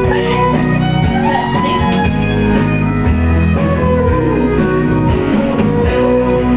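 Country karaoke backing track playing an instrumental passage led by guitar, with steady bass and drums underneath.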